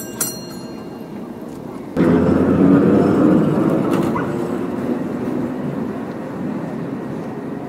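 Vintage tram running past close by on its rails. It comes in suddenly and loud about two seconds in, then slowly fades as it moves away, over general street noise.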